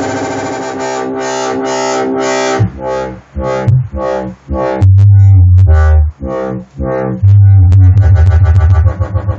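Native Instruments Massive software synthesizer playing dubstep sounds. A rhythmically pulsing chord turns into choppy stabs, and about halfway in loud, deep bass notes come in, stuttering near the end.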